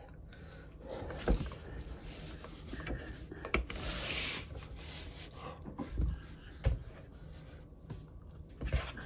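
Hands handling a hard plastic cup and setting it onto a plastic display turntable: several soft knocks, with a brief scrape about four seconds in.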